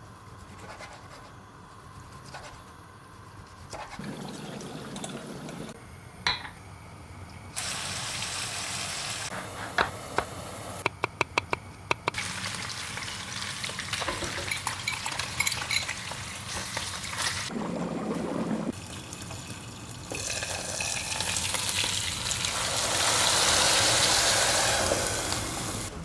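Kitchen cooking sounds over a series of short cuts: pork slices sizzling in a frying pan and water boiling in steel pots on a gas stove. A quick run of sharp clicks comes about eleven seconds in.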